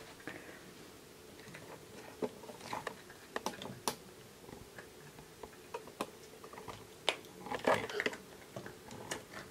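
Hands handling the soft, squishy plastic pieces of an LOL Surprise doll capsule, giving faint, irregular clicks, taps and rustles, with small clusters of clicks a few seconds in and again near the end.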